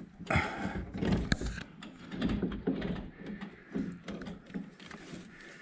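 Irregular knocks, scrapes and clunks of a hydroboost brake unit being worked into the car's firewall opening, metal rubbing and bumping against the body.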